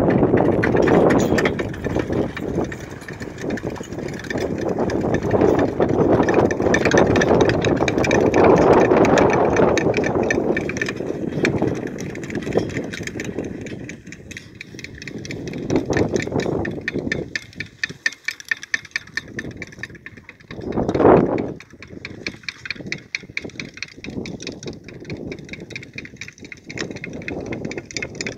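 Horse-drawn manure spreader rattling and clattering as its beaters fling heavy wet manure, a dense stream of rapid ticking; the sound grows fainter about halfway through as the team pulls away.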